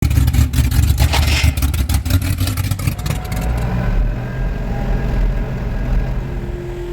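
1983 Ford Capri's engine running and revving with a deep rumble and crackle, settling after about three and a half seconds into a smoother, steadier run.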